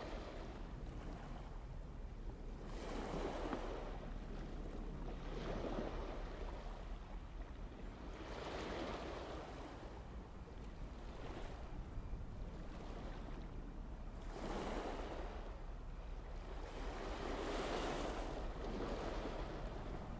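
Sea waves washing in, a rushing swell that rises and falls about every three seconds.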